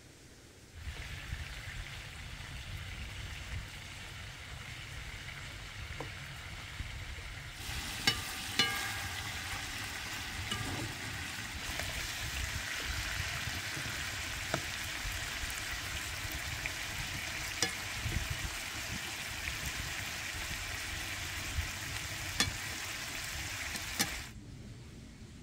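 Food sizzling as it fries in hot oil, growing louder and brighter about a third of the way through. Occasional sharp clicks, like a utensil knocking the pan, sound over it, and the sizzle cuts off abruptly near the end.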